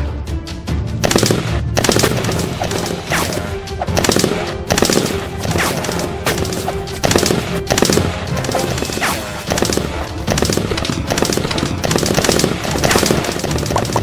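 Automatic rifle gunfire sound effects: rapid, irregular volleys of shots from both sides of a shootout, over background music.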